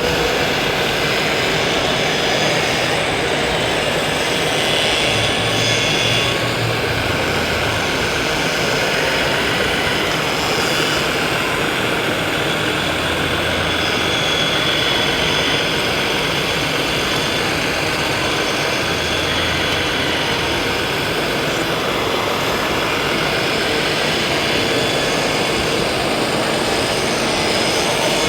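Radio-controlled construction models and trucks running, their engine-sound modules and hydraulic pumps making a steady engine-like drone over a continuous rushing background. A low hum swells briefly several times.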